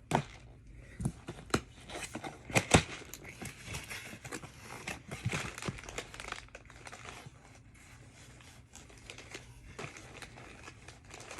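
Packaging crinkling and tearing as a package is opened by hand, with scattered clicks and knocks; a sharp knock about two and a half seconds in is the loudest.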